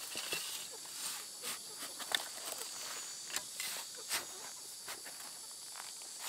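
A small metal shovel digging into dry, crumbly soil: irregular scrapes and crunches as the blade is pushed into the earth and works it loose.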